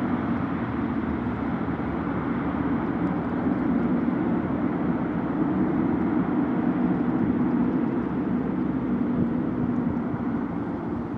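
Four Allison T56 turboprop engines of a C-130H Hercules, heard from a distance as the aircraft rolls down the runway after landing: a steady, deep engine noise that swells in sharply at the start and eases off near the end.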